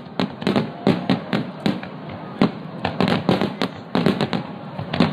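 Aerial fireworks shells bursting in a rapid barrage, several sharp bangs a second, each followed by a short echoing tail.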